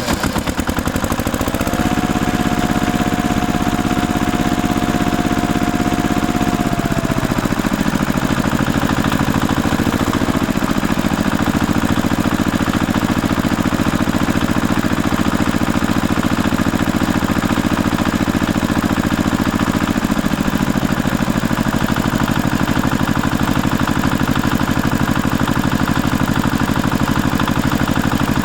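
Tractor engine running steadily with a fast even chug, its note dropping about seven seconds in.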